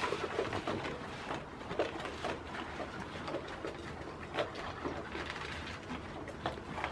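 Goats eating dry feed from bowls and a plastic feeder: a steady run of small crunches and clicks.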